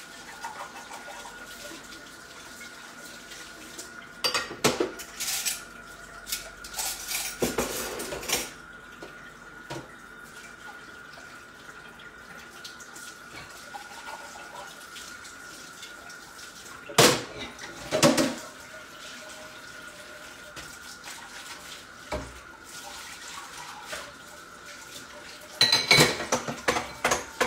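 Kitchen clatter of dishes and cutlery being handled, coming in scattered bursts. There are two sharp knocks about a second apart midway and a dense run of clinks near the end, over a faint steady high tone.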